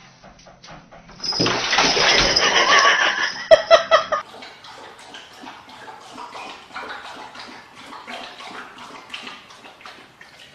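Water gushing into a bathtub for about three seconds, with a few knocks near the end, then cutting off abruptly; after that only faint scattered taps and scuffling.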